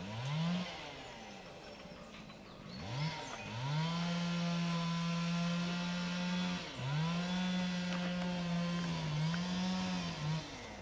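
A small engine revved several times: a short rev at the start, then two longer runs, each climbing quickly to a steady high pitch and holding it for about three seconds. There is a brief dip in pitch near the end before it winds down.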